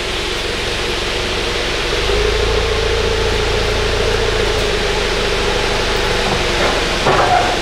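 Forklift engine running as it carries a granite slab forward, with a steady whine over it, a little louder from about two seconds in. A short louder sound comes near the end.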